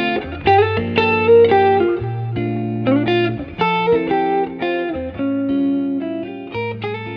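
Outro background music: plucked guitar notes and chords over a bass line.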